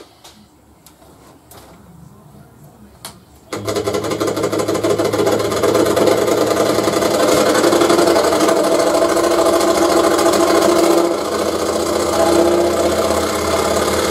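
Axminster Trade EX21 variable-speed scroll saw (the rebranded Excalibur EX21) switched on about three and a half seconds in, after a few faint clicks, then running steadily with a fast, even reciprocating buzz.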